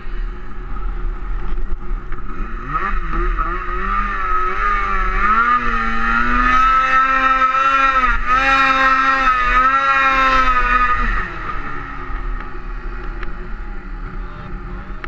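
Snowmobile engine revving hard under throttle. The pitch climbs steeply about three seconds in, holds high and wavers as the sled pushes through the snow, then falls back to lower revs about eleven seconds in.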